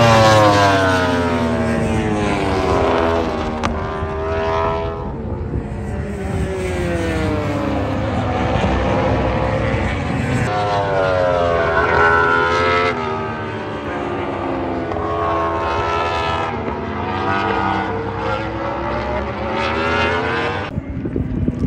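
Superbike racing motorcycles passing at speed, one after another, their engine notes falling as each goes by and climbing again as they accelerate through the gears. The loudest pass is at the start, and the sound cuts off abruptly near the end.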